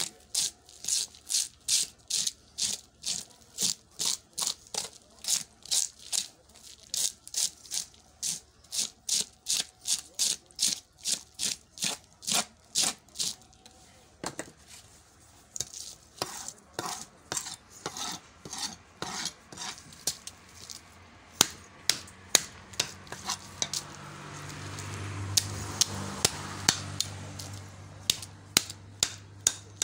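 A blade scraping the scales off a large fish on a wooden chopping block: rapid, even scraping strokes about two or three a second, becoming sparser and uneven in the second half. A low hum swells and fades in the background near the end.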